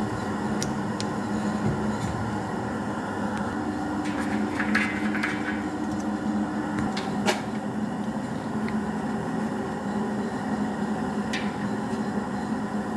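Small portable electric air compressor running steadily with a constant buzzing hum, with a few sharp clicks and a brief rattle partway through.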